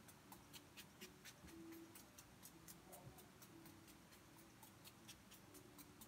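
Pump-mist bottle of e.l.f. makeup setting spray pressed rapidly over the face: a run of short, faint spritzes, about four or five a second.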